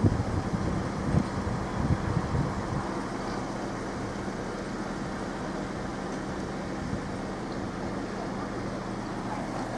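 Road traffic: motor vehicles running on the road, with a steady low engine hum and a few louder passes in the first three seconds before it settles to an even rumble.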